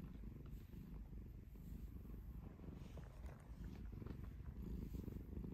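Black-and-white cat purring steadily while its belly is stroked: a faint, low, continuous rumble, a little louder near the end.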